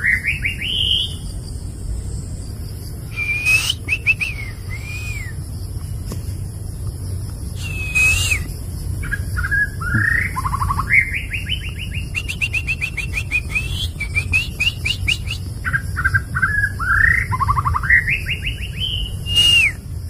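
Male white-rumped shama singing: a long, varied run of clear whistled phrases, some sliding up or down, broken by quick rapid trills about two-thirds of the way through.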